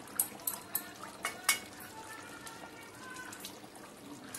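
A small steel bowl clinking against the metal spatula and pan, about five sharp clinks in the first second and a half, as garam masala paste is tipped and scraped into a pan of chicken curry.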